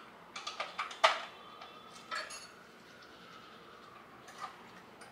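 Scattered light clinks and knocks of dishes and kitchen utensils being handled on a counter. There is a quick cluster in the first second, the loudest of them about a second in, then a couple more just after two seconds and one more near the end.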